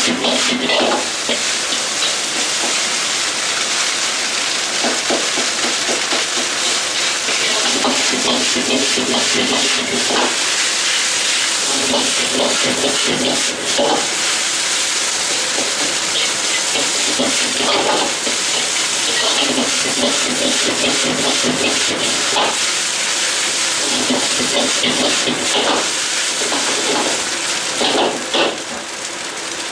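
Egg fried rice sizzling in a wok over a high gas flame, with a steady hiss from the frying and the burner, while a metal ladle scrapes and clanks against the wok as the rice is stirred and tossed. The sound drops a little near the end.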